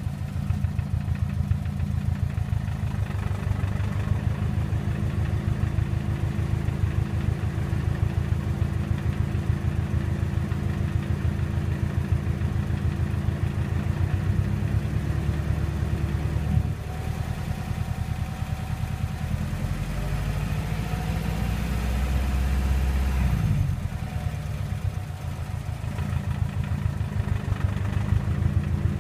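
2007 Subaru WRX engine idling with a fast, steady rattling buzz: the intercooler Y-pipe shaking against another part in the engine bay under idle vibration. The sound changes for several seconds past the middle, then settles back to the same idle.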